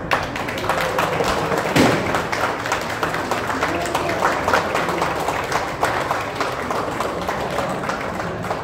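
A small group of people clapping steadily.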